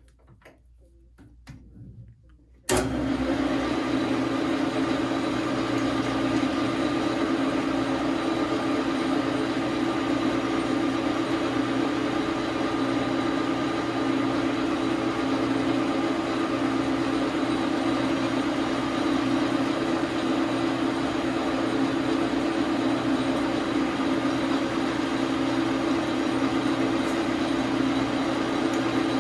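Small manual metal lathe (Dar Sin 12 x 37) switched on with a few faint clicks before it, then the motor and spindle gearing running at a steady speed.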